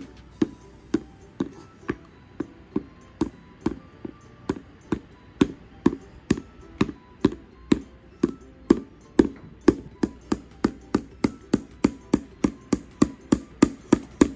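Small child's hammer tapping a wooden wheel onto a wooden toy car, a long run of light, even strikes at about two a second, quickening to about three a second near the end.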